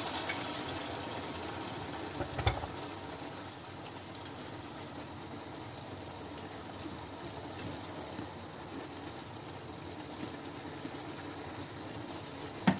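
Minced meat in soy sauce and freshly added water simmering and sizzling in a frying pan, a steady low bubbling hiss. A single knock about two and a half seconds in.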